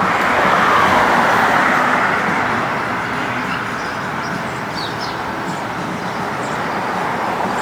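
City street traffic: a passing vehicle's noise swells over the first two seconds, then eases into a steady traffic hum.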